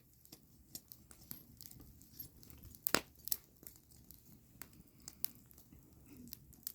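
Wood fire crackling, with irregular sharp pops and snaps and one louder pop about three seconds in.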